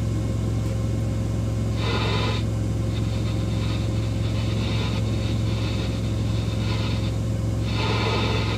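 Steady low hum of the semi truck's diesel engine idling, heard inside the cab. A short burst of hiss comes about two seconds in and another near the end.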